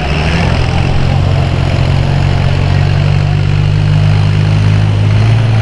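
Farm tractor engine running hard under load while pulling the sled, a loud, steady low drone.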